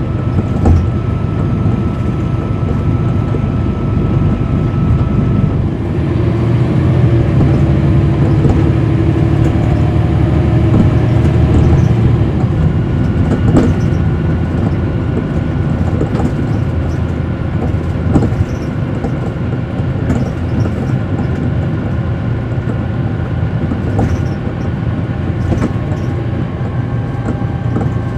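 On board a 2010 NABI 40-foot suburban transit bus under way: its Cummins ISL9 diesel engine and drivetrain running with a heavy road rumble, a faint steady whine and occasional rattles and knocks. The sound swells a little from about six seconds in to around twelve, then eases.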